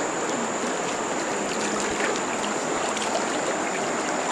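Steady rushing of water, with a few faint ticks and a thin, constant high whine over it.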